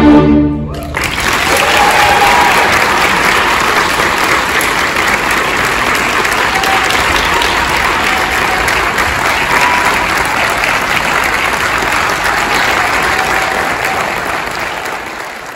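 A string orchestra's final chord rings and stops under a second in, then a large audience applauds in an auditorium with a few short cheers; the applause thins out near the end.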